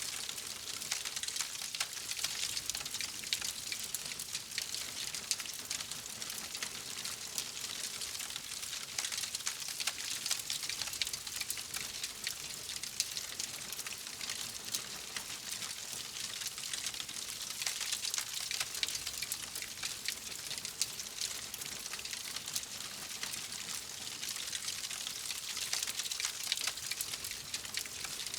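Fireplace fire crackling steadily: a continuous hiss thick with small, rapid pops.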